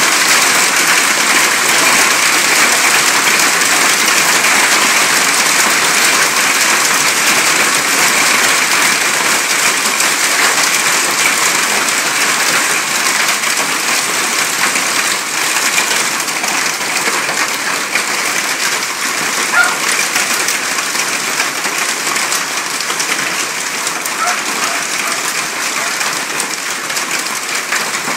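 Hailstorm: hail and heavy rain pelting down, a dense, steady patter of countless small impacts that eases slightly near the end.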